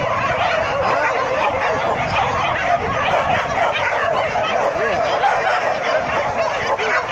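A pack of leashed dogs yelping and barking over one another in a steady, loud din.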